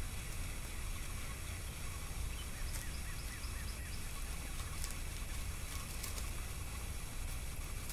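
Steady outdoor background noise: a low rumble with hiss. Faint bird chirps run in a quick series about three seconds in, and a few faint clicks or rustles follow.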